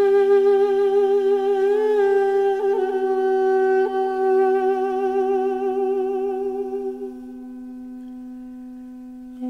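Background music: one long held note, wavering slightly in pitch, over a steady low drone. The held note fades out about seven seconds in, leaving the drone alone.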